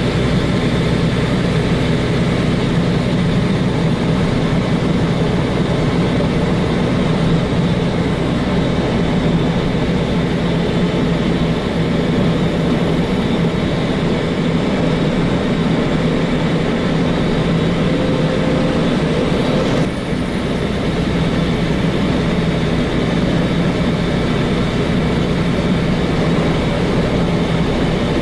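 Semi-truck diesel engine running steadily under way, a deep even hum, with a brief dip in level and a faint click about twenty seconds in.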